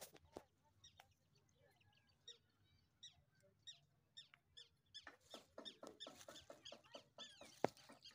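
Faint chirping of small birds: short, high, falling calls, few at first and much busier from about five seconds in. A sharp click near the end.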